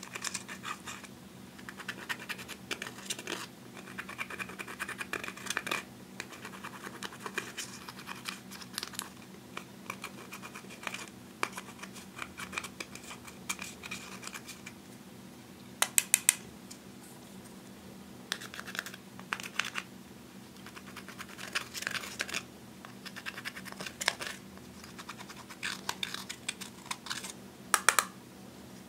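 A thin metal pick scraping pressed eyeshadow out of the pans of a plastic palette, in irregular runs of dry scratches as the powder crumbles. A few louder sharp clicks come about halfway through and again near the end.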